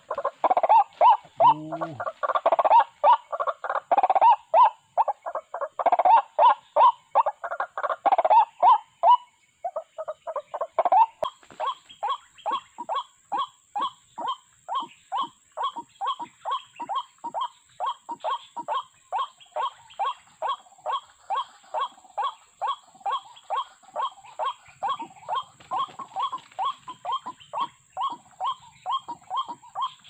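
White-breasted waterhen calling: a loud, dense run of harsh repeated notes for the first ten seconds, then after a short break a steady, quieter series of about two to three notes a second.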